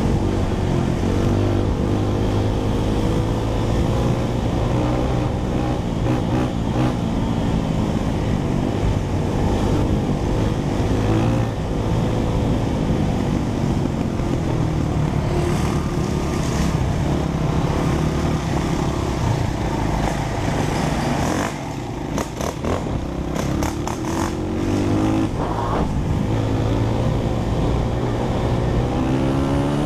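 Four-stroke dirt bike engine running on a trail, its pitch rising and falling with the throttle. About two-thirds of the way through it eases off briefly amid a run of knocks and rattles, then picks up and revs up near the end.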